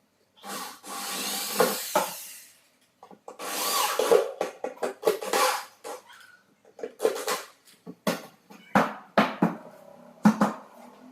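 Power drill working on wood, with two runs of a second or two, then a quick series of short bursts and knocks over the last few seconds.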